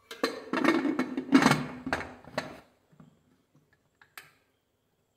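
Aluminium pressure cooker lid being fitted and closed on the pot: metal scraping and clattering for about two and a half seconds, then a few light clicks.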